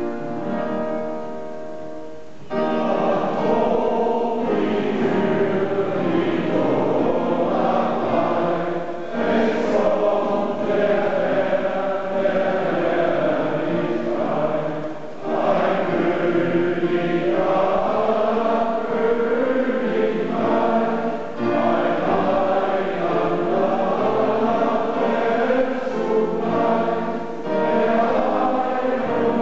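A short keyboard passage gives way, about two and a half seconds in, to a male voice choir singing a Christmas song in close harmony, with brief breaks between phrases.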